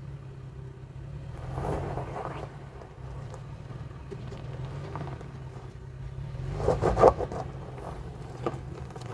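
Toyota 4Runner engine running at low revs as the SUV crawls over rocks, with tyres crunching and scraping on rock and gravel; the loudest crunch comes about seven seconds in.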